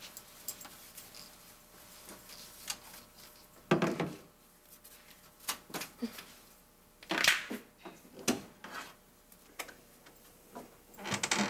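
Scattered knocks, clicks and clatter of household objects being handled, with a heavier thump about four seconds in and louder noisy bursts about seven seconds in and near the end.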